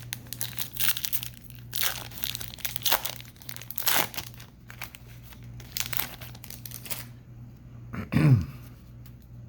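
Foil wrapper of a Bowman baseball card hobby pack being torn open and crinkled, in irregular rustling bursts. About eight seconds in there is a brief low sound that falls in pitch.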